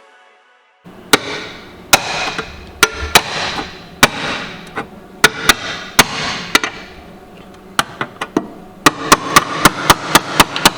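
Hammer blows on a steel repair plate tacked into a car's underbody: separate strikes with a short ring after each, then a quick run of taps near the end, testing whether the tack welds hold.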